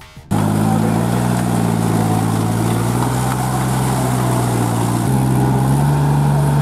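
Kubota compact tractor's diesel engine running steadily while the tractor is bogged down in deep mud. It comes in abruptly just after the start, and its pitch steps up slightly about five seconds in as the engine speeds up a little.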